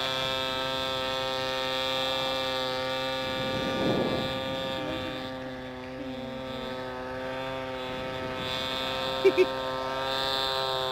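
Gas engine of an R/C model airplane, a 31cc Ryobi two-stroke, turning a 16x8 three-blade propeller in flight, a steady drone at nearly constant pitch. It fades somewhat around the middle as the plane draws away and grows louder again near the end.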